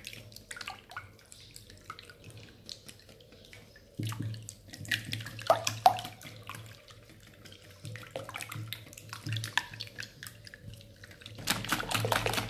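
Hand wire whisk beating an egg-and-milk custard mixture in a glass bowl: rapid clicking of the wires against the glass with liquid sloshing. It gets louder and busier about four seconds in and again near the end.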